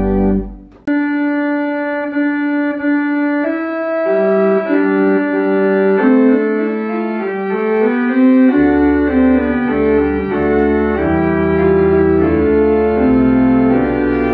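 Church organ playing a solo passage of a postlude, held chords moving from note to note. A brief break comes just under a second in, and deep pedal notes enter about two-thirds of the way through.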